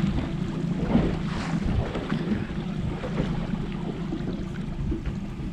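Boat engine running steadily at trolling speed, with wind noise on the microphone and water against the hull.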